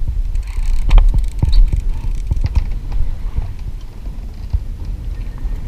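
Low rumble of wind on the microphone aboard a small fishing boat, with irregular knocks and clicks from the boat and fishing gear; the loudest knocks come about one and one and a half seconds in.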